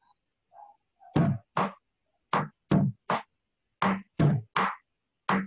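Panamanian cumbia hand drum (tambor) struck in a sparse rhythm: short, dry strokes with a low body, mostly in groups of three, with a short pause between groups.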